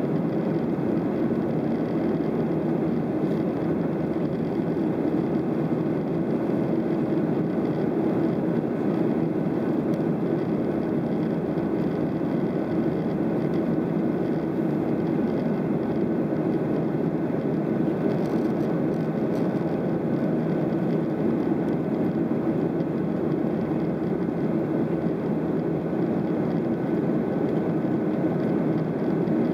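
Steady cabin noise inside a Boeing 737-700 in flight: the CFM56-7B turbofan engines and the rush of air over the fuselage make an even, low drone, with a faint steady whine above it.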